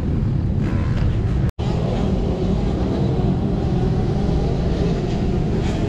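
Kubota compact track loader's diesel engine running steadily. The drone cuts out for an instant about a second and a half in.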